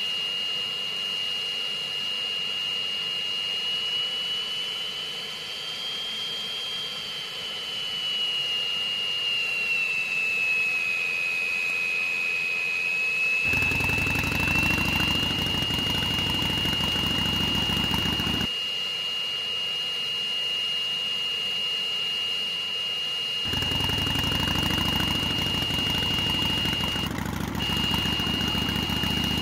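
Cartoon sound effects: a steady high-pitched whine that drifts slightly up and then down in pitch before holding level, joined by an engine-like low rumble for about five seconds starting 13 seconds in, and again from about 23 seconds in.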